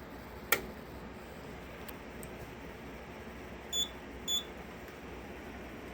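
A single sharp click about half a second in, then two short, high-pitched beeps about half a second apart from the Simplex 4010 fire alarm control panel's piezo sounder as the panel finishes resetting after an alarm.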